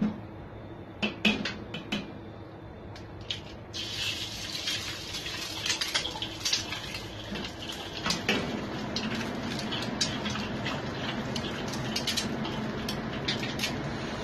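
Chicken eggs cracked into hot oil in a wok: a few sharp knocks, then sizzling and spattering starts suddenly about four seconds in and grows fuller after about eight seconds as the second egg goes in.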